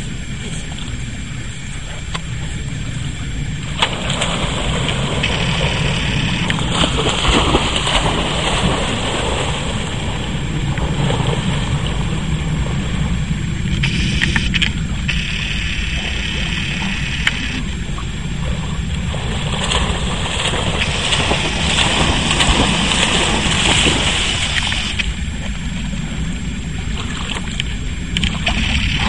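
Water splashing and sloshing as large dogs wade and swim, over a steady low wind rumble on the microphone; the splashing swells in several stretches of a few seconds each.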